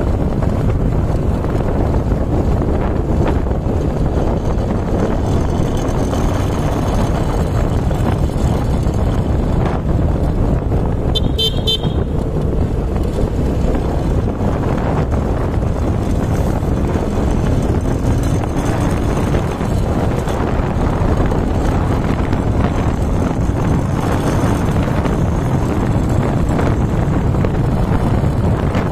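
Wind rushing over the microphone of a moving vehicle, with its engine running underneath, changing pitch now and then. A short horn beep sounds about eleven seconds in.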